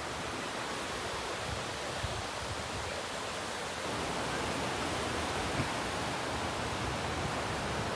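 Steady wash of small waves breaking on a sandy beach, a little louder from about four seconds in.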